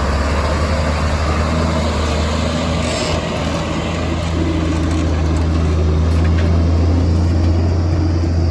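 Heavy diesel engine of construction machinery running steadily with a deep drone, with a brief hiss about three seconds in and the engine getting a little louder over the second half.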